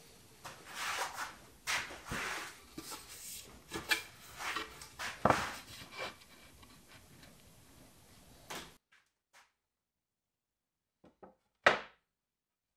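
Solid wood boards being handled on a wooden workbench while a dovetailed bookshelf case is dry-fitted: scraping and rubbing with light wooden knocks. It cuts off suddenly about two-thirds through, then a few short knocks follow, the loudest as the top board seats onto the sides.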